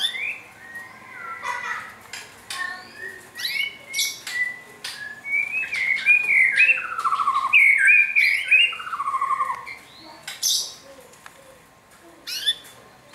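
Birds chirping and squawking: a run of short chirps and downward-gliding calls, busiest and loudest in the middle, with a few sharp clicks mixed in.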